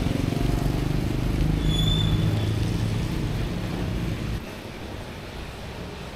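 Street traffic with a motorbike engine running close by; the rumble drops away about four seconds in. A short high tone sounds about two seconds in.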